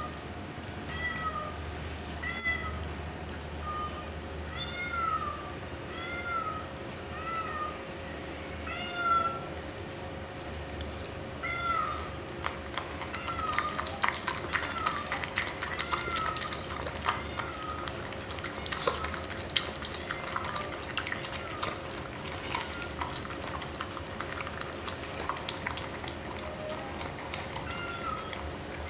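An animal's short, high, rising-and-falling whining calls, about one a second, growing sparse after the middle. From about twelve seconds in, a miniature schnauzer laps wet chia seed gel from a stainless steel bowl, making quick wet clicks and slurps.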